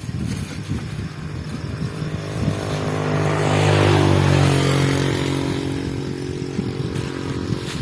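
A motor vehicle passing by, its engine growing louder to a peak about four seconds in, the pitch dropping as it goes past, then fading away.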